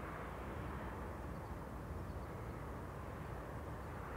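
Steady low rumble of a stopped container train, its distant diesel locomotives idling while the wagons stand still.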